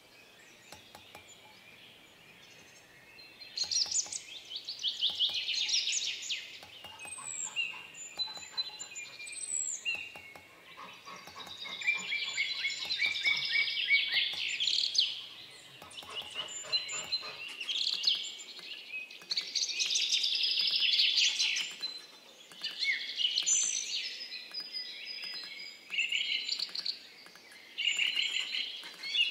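Quick runs of light hammer taps on a small steel punch, chasing a pattern into a thin pierced copper disc. Each run gives a fast high metallic ticking and lasts a few seconds, then pauses, starting about three and a half seconds in. Small birds chirp in the background.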